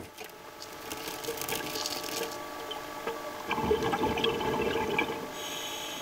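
Underwater sound of scuba exhaust bubbles gurgling and crackling, louder from about three and a half seconds in, over a faint steady hum.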